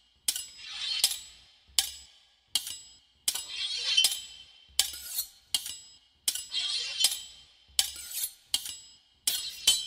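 Butcher's knife worked against a sharpening steel in a steady rhythm: a sharp metallic clink about every three-quarters of a second, with rasping strokes of the blade between them.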